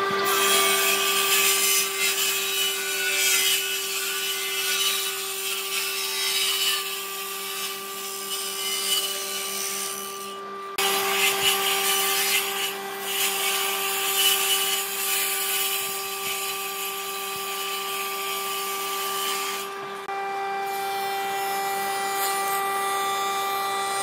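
Stationary woodworking machine with a saw blade running with a steady motor hum while pine boards are fed through it. The cutting noise rises and falls over the hum, and the sound changes abruptly twice, about eleven and twenty seconds in.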